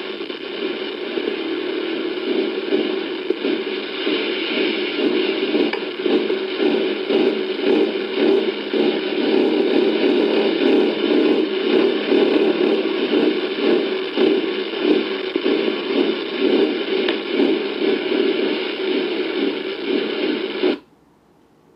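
A steady, loud, hissy drone: the unexplained 'rumbling' noise. It sounds thin, with no deep bass, and cuts off suddenly about a second before the end.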